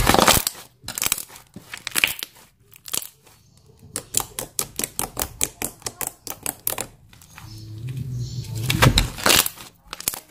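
Homemade glossy glue slime being squished and stretched, giving off crackling pops and clicks. A quick run of small pops comes in the middle, and louder squelching bursts come at the start and just before the end.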